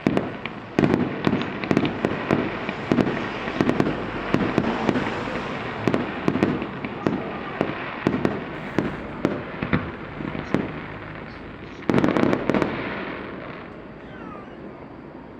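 Fireworks going off in a dense, rapid run of bangs and crackles, with a fresh loud cluster of bangs about twelve seconds in, then dying down near the end.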